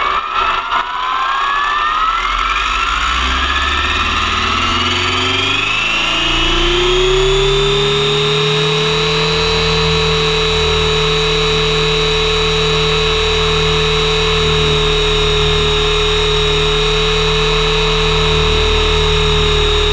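Electric RC helicopter's motor and gear drive whining as the rotor spools up, the pitch rising over about eight seconds and then holding steady at flying speed, heard up close from a camera on the frame.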